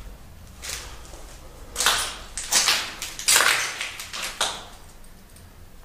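Footsteps scuffing and crunching on a gritty, debris-strewn floor: about half a dozen irregular steps, the loudest in the middle.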